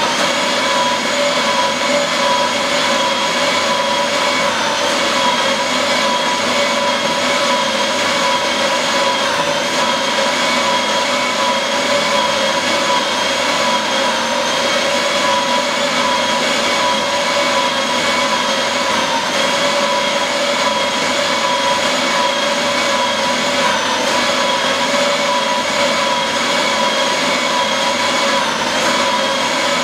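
Paper shredder running without pause as a continuous paper strip feeds up into it: a steady motor whine over an even shredding hiss.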